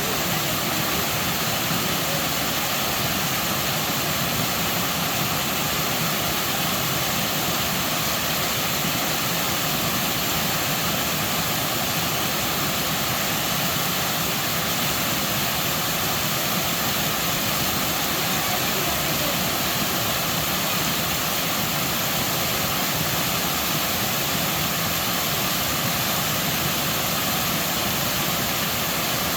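Waterfall, a steady rush of falling water that holds an even level with no breaks.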